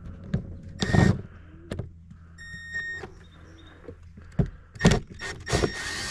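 Cordless screw gun's motor whining in three short bursts as it backs out a door trim panel screw, with clicks and knocks of handling between them.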